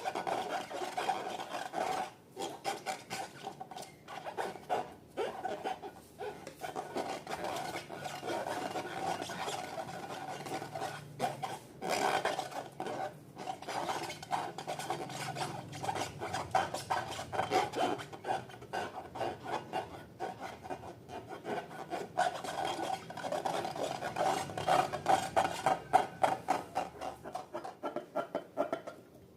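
Slime being mixed and squished, a continuous run of rapid crackling and scraping that drops out briefly a few times.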